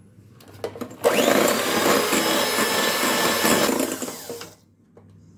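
Electric hand mixer switched on about a second in after a few faint clicks, its motor whining up to speed as the beaters whisk eggs, sugar and oil in a glass bowl. It runs steadily for about three and a half seconds, then winds down and stops.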